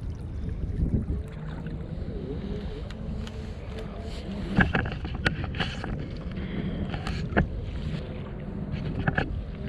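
Steady low rumble of wind and water around a fishing kayak, with a few sharp knocks or clicks in the second half, the loudest about halfway through.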